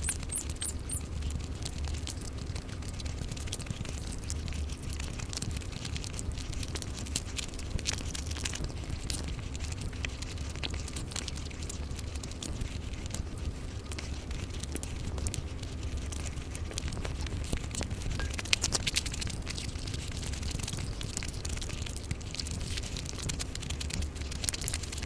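Close-miked eating sounds: chewing and wet mouth noises with small clicks and crackles as food is torn by hand and eaten, over a steady low hum.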